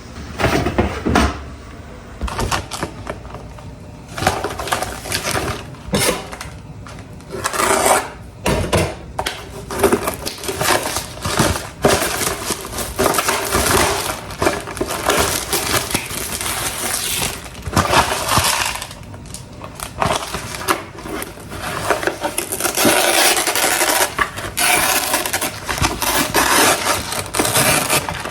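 Close-miked eating sounds: food being chewed and crunched, with utensils clicking and scraping against dishes, in long noisy stretches broken by sharp clicks.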